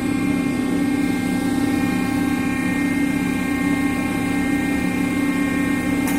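CNC lathe running: a steady machine hum with several constant whining tones above it, and one short click near the end.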